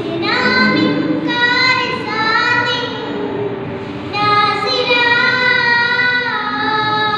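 A young girl chanting an Arabic poem solo, unaccompanied, in long melodic sung phrases with held notes that glide between pitches. One phrase runs through the first few seconds and, after a short breath about four seconds in, a second long phrase follows.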